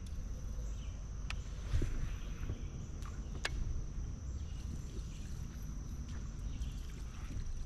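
Outdoor ambience: a steady high insect drone over a low rumble, with a few sharp clicks, the loudest about three and a half seconds in.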